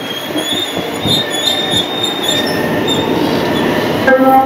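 JR West 683 series limited-express electric train running slowly past, its wheels giving a steady rumble with a thin high squeal on the rails. Near the end, pitched notes begin.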